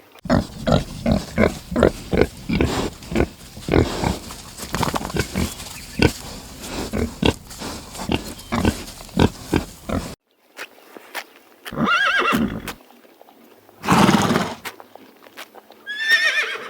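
Farm animal sounds: about ten seconds of quick, repeated short grunting or snorting pulses that stop abruptly, followed by three separate pitched calls about two seconds apart, the last a wavering, higher call.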